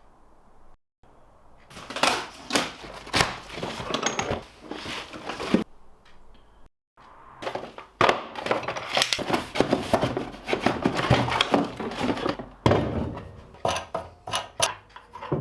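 Tools and packaging being handled during unboxing: a busy run of clunks, clicks and rattles, in two stretches with a pause between.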